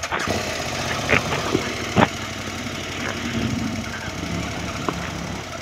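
Motorcycle engines idling steadily, with two short clicks about one and two seconds in.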